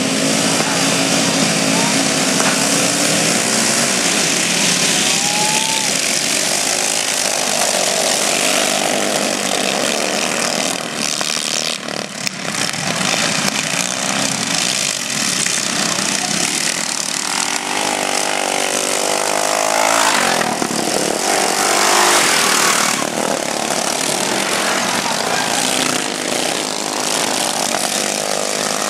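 Several racing riding lawn mowers' small engines running hard at full throttle, the engine notes rising and falling in pitch as the mowers pass, loudest as one goes by close about twenty seconds in.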